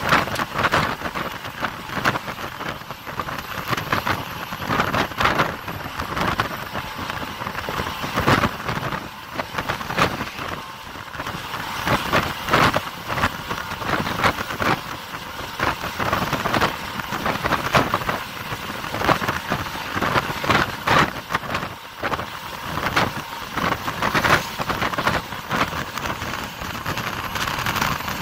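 Bus travelling at highway speed: a constant rush of wind and road noise, with irregular gusts buffeting the microphone.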